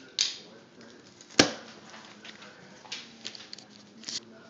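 Handling noise: a short scrape near the start, a single sharp knock about a second and a half in, then a few light clicks and taps.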